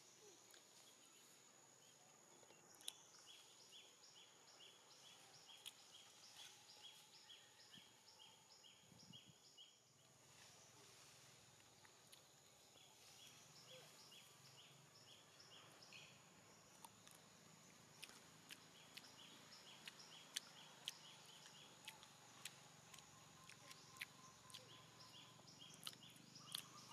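Faint outdoor ambience: a bird repeats short, high chirps at about two a second, in three runs of a few seconds each. Under it runs a steady thin high whine, with scattered faint ticks.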